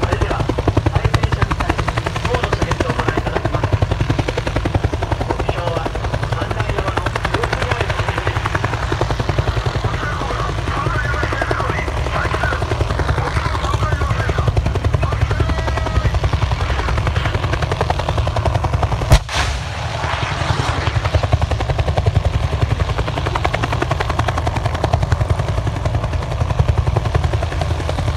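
Military helicopter flying low, its rotor chopping steadily and loudly throughout. About two-thirds of the way in there is a single sharp, loud bang of live fire, the loudest moment.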